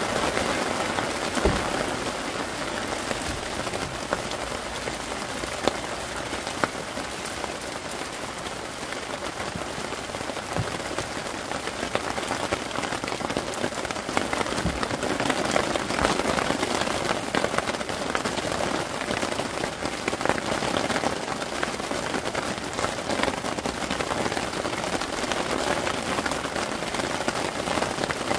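Heavy monsoon rain pouring steadily, with a few sharper taps of single drops striking close by.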